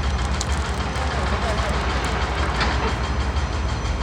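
A steady low mechanical hum and rumble, with a fast flutter in it, over a background hiss of noise.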